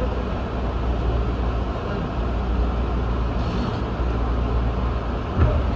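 Steady low hum and rumble inside an electric passenger train, heard from behind the driver's cab window as it stands or creeps along, with a single thump about five seconds in.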